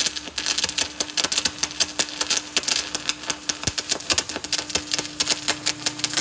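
Electric arc welding: the arc crackling and spitting in rapid, irregular clicks over a steady low hum.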